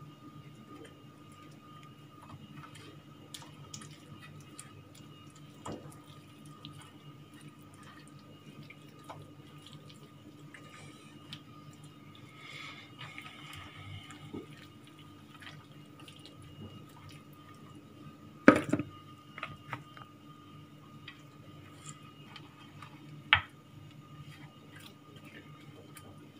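Soft wet squelching of chermoula-coated meat being rubbed and pressed by hand in a clay dish, over a faint steady hum. A few short sharp knocks, the loudest about eighteen seconds in.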